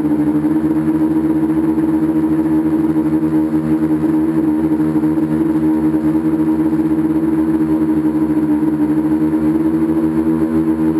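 Electric motors and propellers of an FPV tricopter running steadily in flight, heard up close from the camera mounted on the craft, the pitch wavering slightly with throttle.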